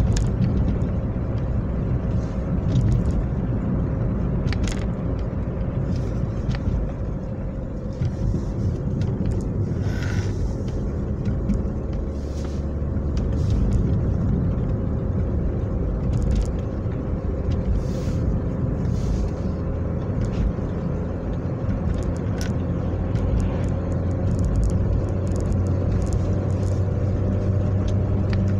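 A car driving at a steady cruising speed, heard from inside the cabin: a continuous low rumble of engine and road noise with a few faint ticks.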